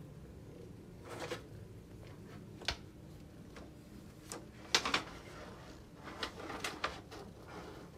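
Scattered light clicks and rustles of handling, several in all, the loudest pair a little before the middle, over a faint steady background.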